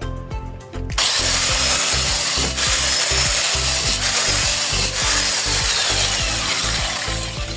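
A power tool working on material: a loud, steady, harsh rasping noise starts abruptly about a second in and stops near the end. Background music plays throughout.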